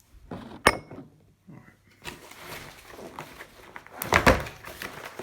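A cardboard keyboard box being handled and pulled at: a sharp knock about a second in, then scraping and rustling, with a louder bout of handling near the end.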